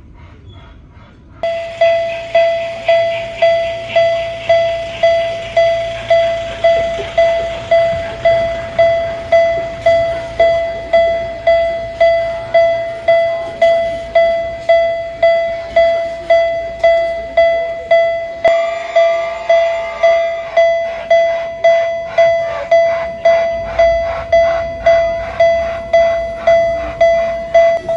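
Miniature railroad crossing warning signal ringing its 'kan-kan' alarm, an even, repeated ding at about one and a half strikes a second that starts about a second and a half in. About two-thirds of the way through, a second, busier sound with a faster rhythm joins in.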